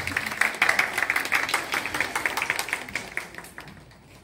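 Audience applauding, a dense patter of hand claps that dies away near the end.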